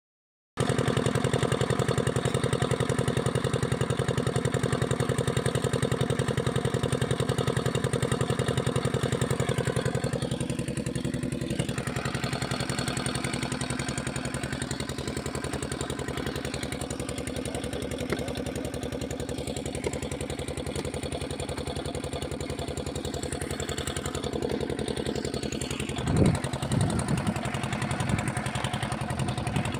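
A small engine running steadily, easing down a little about ten seconds in, with a few low thumps near the end.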